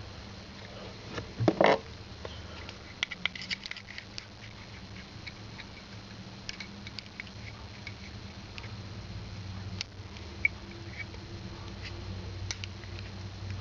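Small clicks, taps and scratches of a disassembled Zippo lighter insert being handled while the wick is threaded back in, with one louder knock about a second and a half in.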